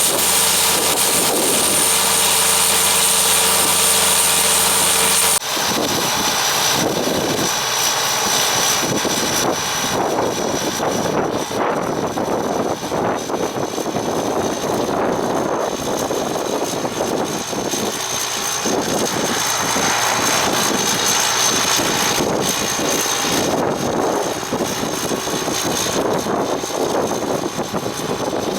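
Gleaner R42 combine harvester running steadily with a high-pitched whine. About five seconds in the sound changes abruptly to a rougher, fluctuating machine noise, still with a steady high whine.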